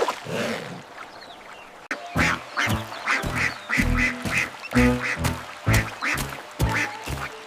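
Cartoon duck quacking in a quick run of repeated calls, about three a second, over background music. The quacking starts about two seconds in.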